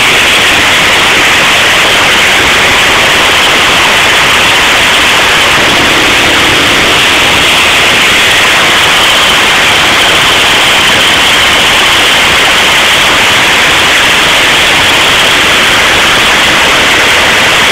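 Caterpillar C-12 inline-six diesel engine running steadily and very loud; the recording is overloaded into a dense, distorted noise with no engine beat to pick out.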